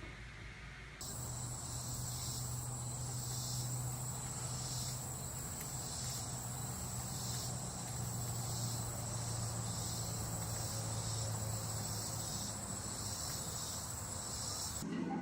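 A steady, high-pitched insect chorus, pulsing in a regular rhythm over a low steady hum. It starts about a second in and cuts off just before the end.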